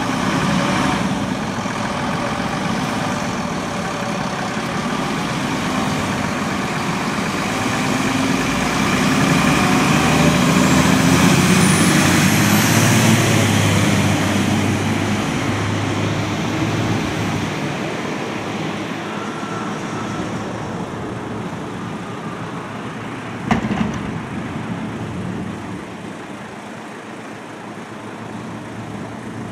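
A heavy vehicle, a truck-sized emergency vehicle, driving past in street traffic, its engine and tyre noise growing to its loudest about halfway through and then fading. A single sharp knock comes near the end.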